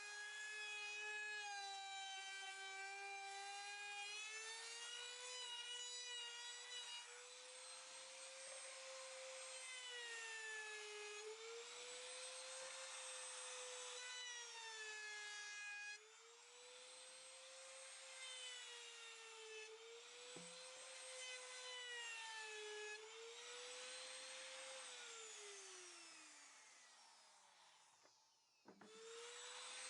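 A high-speed electric power tool working wood, its motor whine sagging slightly in pitch each time it bears into the work and recovering as it eases off. Near the end it is switched off and winds down in a long falling whine, then starts up again just before the end.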